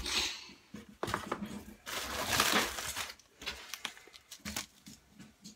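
Plastic packaging crinkling and cardboard rustling and knocking as items are handled in a box of bagged electronics. The crinkling comes in irregular stretches, loudest just at the start and again about two seconds in, with scattered small knocks between.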